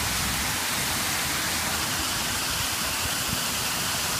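Water falling steadily down the face of the Crown Fountain's glass-brick tower into its shallow pool: a constant, even splashing hiss.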